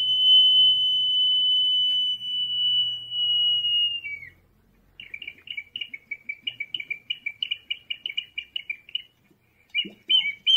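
Double-chambered ceramic whistle jar (Peruvian whistling vessel) sounding one long, steady, high whistle for about four seconds that dips at the end. After a short pause it gives a fast warbling trill of about four or five pulses a second, which starts again louder near the end.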